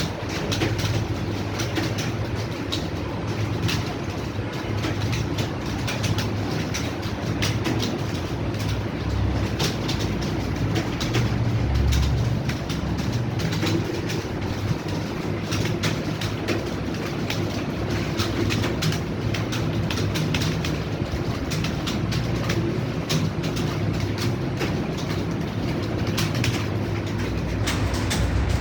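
Many computer keyboards clattering at once, a dense continuous patter of key clicks from a room full of people typing, over a steady low hum.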